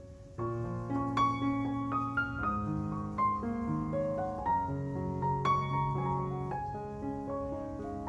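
Background piano music: a gentle melody over bass notes, with a new phrase starting about half a second in.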